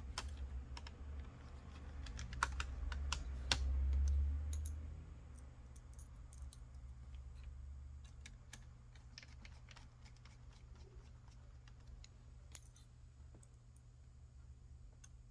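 Scattered small clicks and taps of a screwdriver and small parts as the screws of an HP Pavilion laptop's cooling fan are put back. A low rumble of handling runs through the first five seconds, then fainter clicking.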